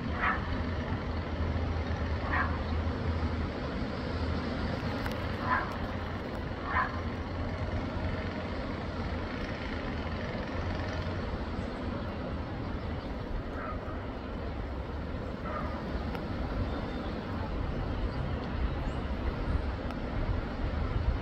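Steady low background rumble with about six short, high chirps a second or more apart, most of them in the first seven seconds.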